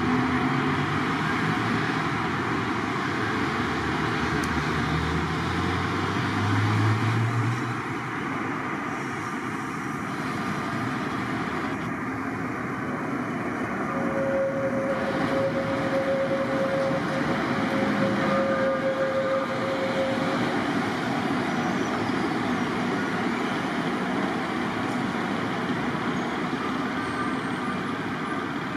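City street traffic noise, a steady rumble of passing vehicles. In the first few seconds an engine rises in pitch as a vehicle pulls away, and a steady whine sounds for several seconds in the middle.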